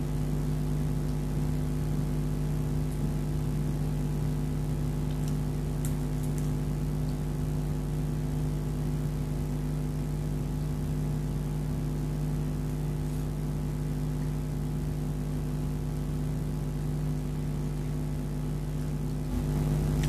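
A motor's steady hum made of several even tones, stepping up slightly near the end, with a few faint clicks about five to six seconds in.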